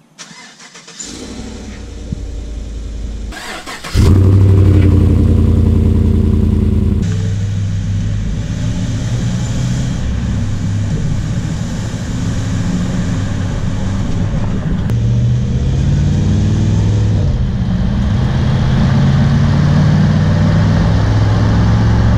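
2017 Chevrolet Silverado's 5.3 L V8 exhaust: a cold start through the factory exhaust at moderate loudness, then, after a cut about four seconds in, the engine much louder and deeper, with a throaty note through a DynoMax Ultra-Flo cat-back. From about seven seconds in, the V8 runs on the move, its exhaust note rising and falling with the revs.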